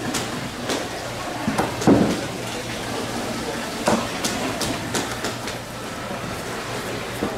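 Room ambience of a food stall: a steady low hum with scattered short clicks and knocks, the loudest about two seconds in.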